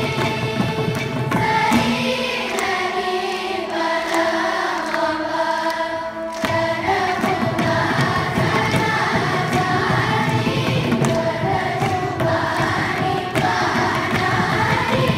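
Large children's choir singing a Carnatic composition with mridangam accompaniment. The drums drop out for a few seconds about two seconds in, leaving the voices to carry a held line, and come back in sharply about six seconds in.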